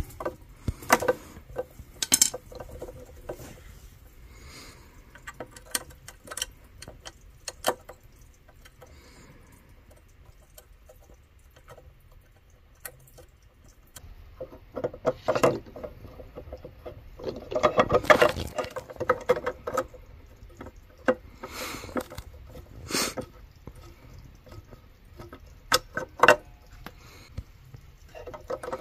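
Intermittent clinks, knocks and rattles of hand tools and metal parts being handled during work on a tankless water heater. They come in scattered bursts with quieter stretches between, and the busiest rattling is about two-thirds of the way through.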